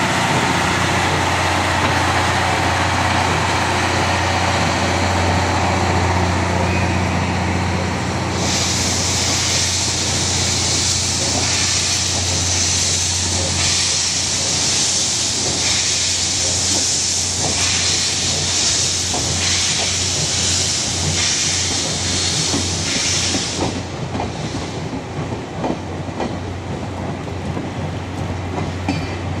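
Steam locomotive and its train: a low steady hum, then from about eight seconds in a loud hiss of steam that cuts off suddenly some fifteen seconds later, giving way to the clickety-clack of wheels over rail joints near the end.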